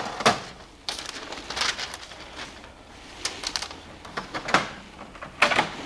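Scattered light taps and clicks, singly and in small clusters, with faint handling noise between them; the loudest come near the end.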